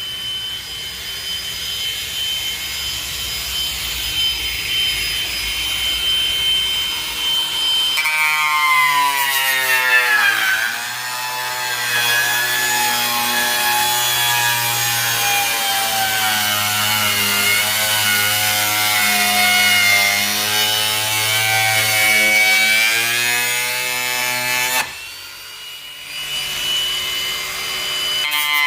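Angle grinder with a chainsaw-chain carving disc cutting through the plastic wall of an IBC tote. It starts with a steady high whine, then the motor's pitch drops and wavers under the load of the cut. Near the end it eases off for about a second, then bites in again.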